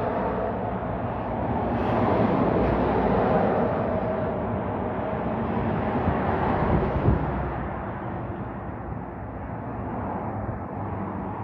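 Highway traffic passing below: lorries and cars going by with engine drone and tyre noise that swells and fades as vehicles pass. A brief knock comes about seven seconds in.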